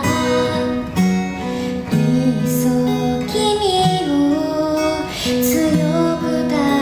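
Background music: a pop song led by strummed acoustic guitar.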